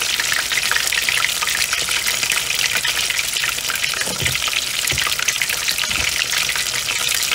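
Battered cod fillets frying in hot oil in a cast-iron skillet: a steady, dense crackling sizzle.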